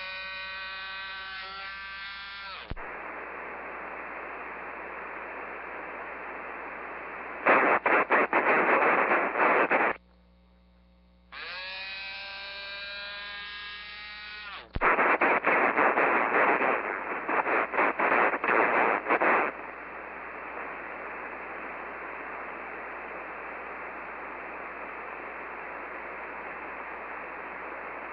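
Cobra CB radio's speaker hissing with receiver static, twice broken by louder, choppy bursts of noise. Wavering tones with many overtones sound at the start and again about halfway, and there is a second of silence just before the second one.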